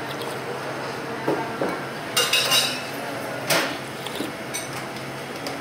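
Metal spoon clinking and scraping against a ceramic soup bowl several times, over steady restaurant background hum; the loudest knocks come a little over two seconds in and again about three and a half seconds in.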